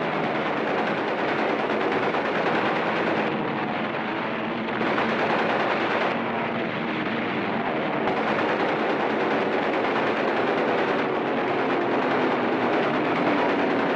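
Piston-engined WWII fighter planes droning in a dogfight, the engine pitch rising and falling as they dive and turn, mixed with machine-gun fire.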